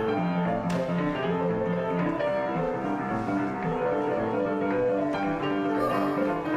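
Boogie-woogie piano music, with repeated low bass notes in the first couple of seconds.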